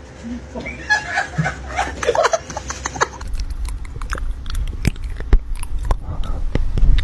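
A pet animal's short vocal sounds, followed by a run of sharp clicks and knocks over a low rumble.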